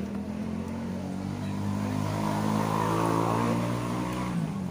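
A motor vehicle passing by: its engine hum grows louder to a peak about three seconds in, then fades with a slight drop in pitch.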